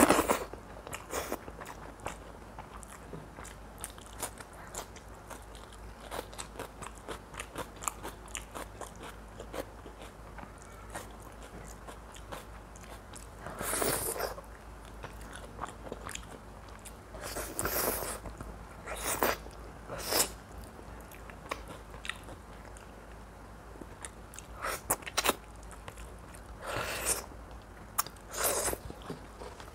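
Close-miked eating sounds of mutton curry and rice being chewed: a steady run of small wet mouth clicks, with louder bites and crunches now and then.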